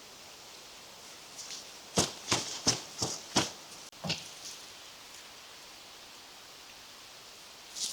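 Tent peg being knocked into the ground: five quick strikes about three a second, one more a moment later and another near the end, over a steady hiss of wind.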